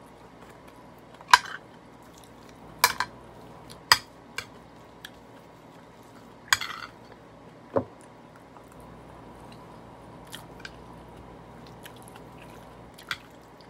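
Eating at a table: scattered sharp clinks and taps of a bowl and utensils, about a dozen spread unevenly, with chewing between them.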